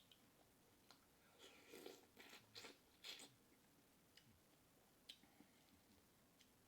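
Faint close-up eating sounds: a person chewing and smacking on seafood, most of it in a short run of wet chewing and crunching between about one and a half and three seconds in, with a few small clicks scattered around it.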